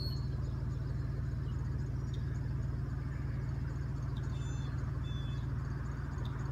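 A steady low mechanical hum, with a few brief faint high chirps of small birds over it.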